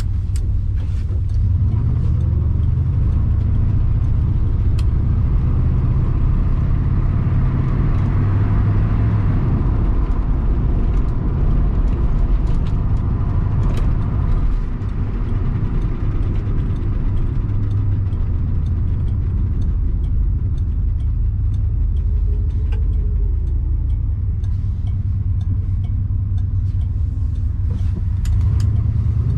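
Interior sound of a 1980 Pontiac Trans Am with the turbocharged 4.9 V8 under way: a steady low engine rumble mixed with tyre and road noise. The sound swells in the middle and dips briefly about halfway through.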